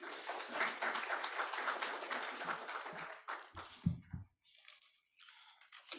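Audience applauding, a dense patter of many hands clapping that dies away a little over three seconds in.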